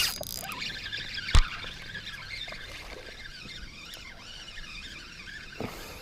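Fishing reel whirring steadily as line is cranked in on a hooked fish, with a sharp knock about a second and a half in; the reeling stops shortly before the end.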